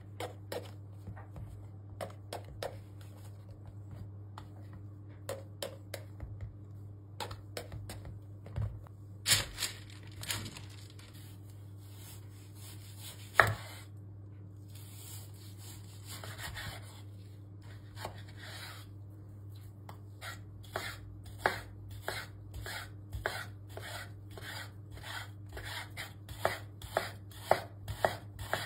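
Kitchen knife cutting eggplant and raw chicken breast on a wooden cutting board: scattered knocks of the blade on the board at first, then a steady run of slicing strokes, about two to three a second, in the last third as the chicken is cut into strips.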